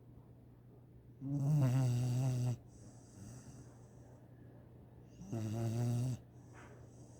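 Snoring: two loud, rasping pitched snores about four seconds apart. Each is followed by a softer hissing breath.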